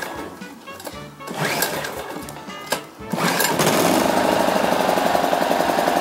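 A WAKITA HPG2300is 2.3 kVA inverter generator's small four-stroke engine being pull-started by its recoil starter: it catches about three seconds in and then runs steadily on choke at a cold start.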